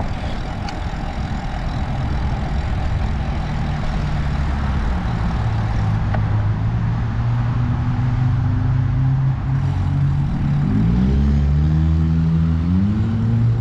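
Road traffic: a motor vehicle's engine hums steadily, then rises in pitch twice near the end as it accelerates, with rough wind and road noise throughout.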